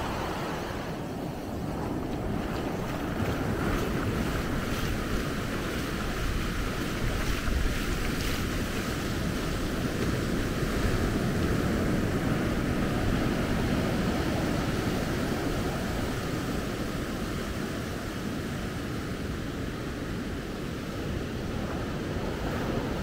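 Ocean surf breaking and washing up a sandy beach, a steady rushing wash that swells a little about halfway through.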